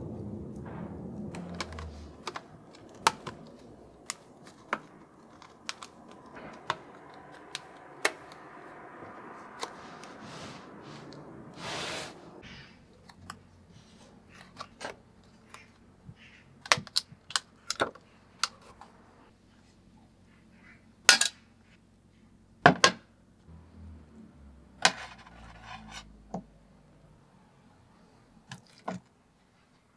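Scattered clicks and taps of a clear plastic container and its lid being handled, then small steel vise parts clinking onto a metal tray as they are pulled out of rust-removal paste. The loudest clinks come about two thirds of the way through, with a short plastic rustle just before the middle.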